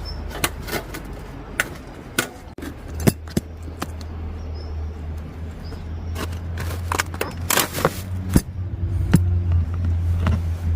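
Camp gear being handled: a string of sharp metallic clicks, clinks and light scrapes, over a steady low rumble.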